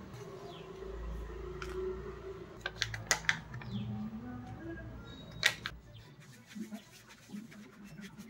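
A steel spoon clicking and tapping as spice powders are spooned onto a banana leaf: a quick cluster of sharp clicks about three seconds in and a single loud click about five and a half seconds in. Near the end, faint scratchy ticking as fingers mix the dry masala on the leaf.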